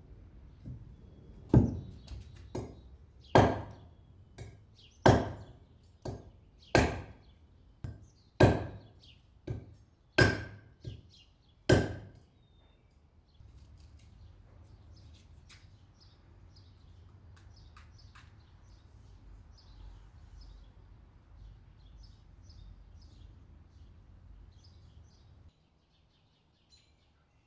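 Wood being chopped: seven loud chopping strokes about a second and a half apart, with lighter knocks between them. After that the strokes stop, and birds chirp over a low steady background hum.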